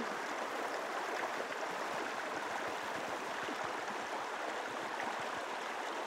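Shallow river water flowing steadily over a stony, pebble bed.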